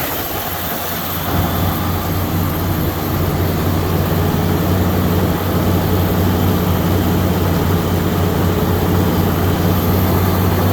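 V8 engine of a 1976 Ford Bronco running steadily at a smooth idle. It comes up a little in the first couple of seconds, then holds.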